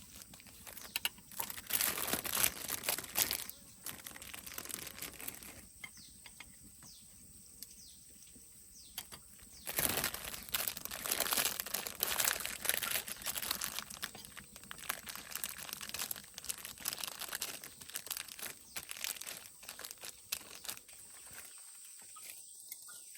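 Irregular crinkling and rustling, as of something papery or leafy being handled, coming in spells with a quieter stretch about six seconds in.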